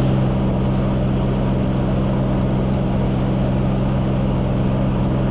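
Jump plane's propeller engine droning steadily, as heard inside the cabin during the climb: a constant low hum with a rushing noise over it.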